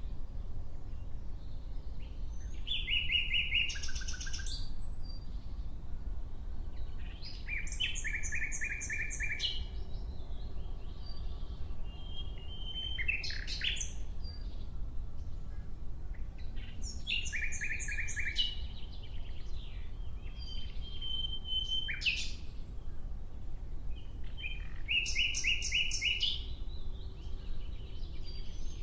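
Nightingale singing in separate phrases of rapid repeated notes and trills, about six phrases with pauses of a few seconds between them, over a low steady background rumble.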